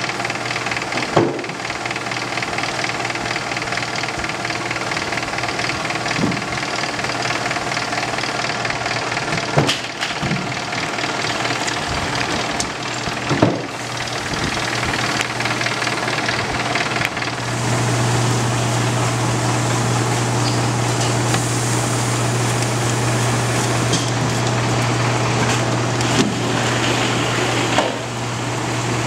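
Honey-frame uncapping machine running with a steady mechanical hum that grows louder a little past halfway, with a few short knocks as wooden frames are handled and fed through.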